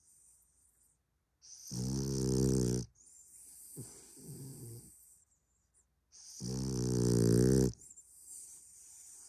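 French bulldog snoring: two loud, buzzing snores on the in-breath, each about a second and a half long and about five seconds apart, with softer wheezy breaths between.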